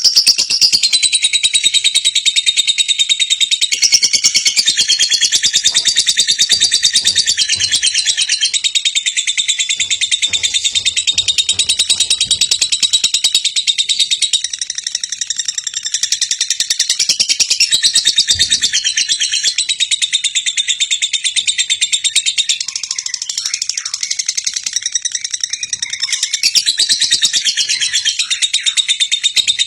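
Lovebird singing in a long, unbroken run of rapid, high-pitched chattering chirps.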